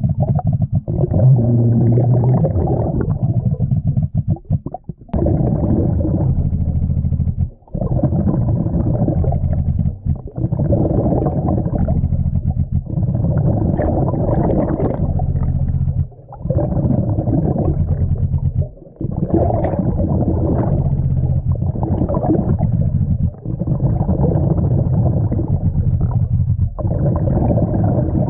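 Muffled low rumbling and gurgling of water heard by an underwater camera, with short drops in level every few seconds.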